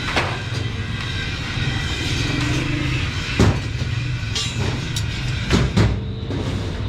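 Background music with a deep, steady bass line and a few sharp percussive hits.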